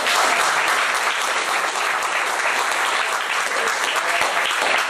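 Audience applauding, many hands clapping steadily, right after a sung vespers chant ends.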